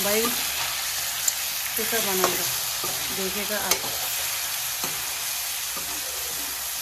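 Pieces of meat and potato frying in oil in a metal wok, with a steady sizzle. A metal slotted spoon stirs them, scraping the pan and clinking against it a few times.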